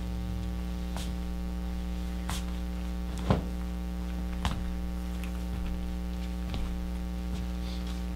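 Steady electrical mains hum, with a few light knocks scattered through it, the loudest a little over three seconds in.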